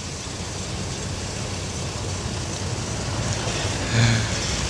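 Distant outdoor warning sirens sounding in the background under a steady low rumble, with a short louder sound about four seconds in.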